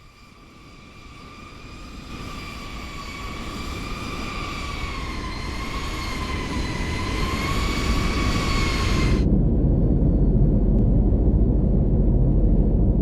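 Jet aircraft on approach growing steadily louder: a high engine whine that wavers slightly in pitch over a rising rumble. About nine seconds in, the whine cuts off sharply, leaving a loud low rumble.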